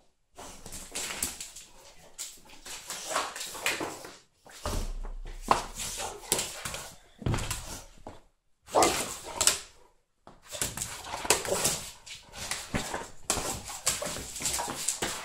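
A bullmastiff whimpering and grumbling in play, in repeated bursts of a second or two with short pauses between.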